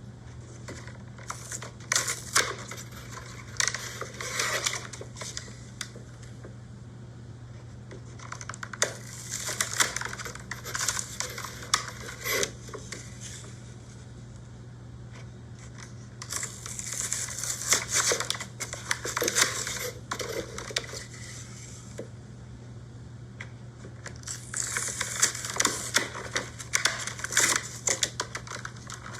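Toy packaging being handled: plastic and card crinkling, scraping and clicking in four bouts of a few seconds each, over a steady low hum.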